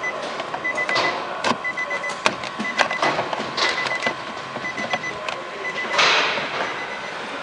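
A flat-blade screwdriver pries at the plastic door-pull trim of a Nissan Qashqai's driver's door panel. It makes a series of sharp plastic clicks and scrapes as the trim is levered at its clips, with a longer scrape about six seconds in.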